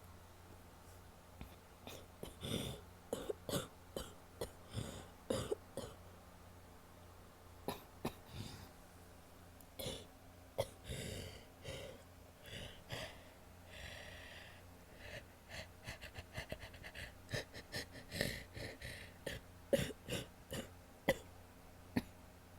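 A woman coughing wet, chesty coughs in several bouts, with breaths drawn between them.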